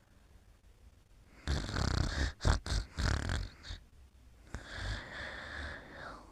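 Snoring during sleep: two snores, the first about a second and a half in, loud and broken up into a rattle, the second softer, starting past the middle.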